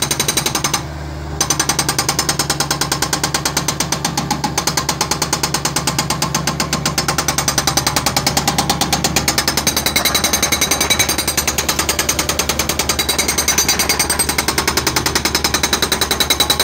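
Hydraulic breaker on a Bobcat 751 skid-steer loader hammering into concrete in a rapid, steady stream of about ten blows a second, over the loader's running engine. The hammering stops briefly about a second in, then picks up again.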